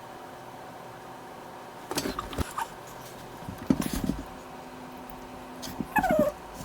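A cat meows once near the end, a short call falling in pitch. A few soft knocks come earlier.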